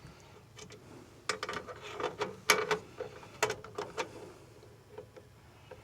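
Irregular light clicks and knocks of small hardware being handled and fitted while working on a metal screen door latch, busiest in the middle seconds and tapering off near the end.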